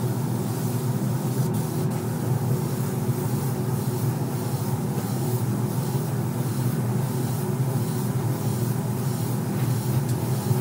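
Steady mechanical drone with an airy hiss, from a paint spray booth's ventilation and a compressed-air spray gun during coating.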